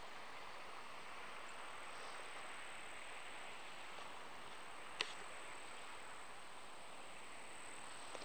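Faint, steady hiss of open-air ambience, with a single sharp click about five seconds in.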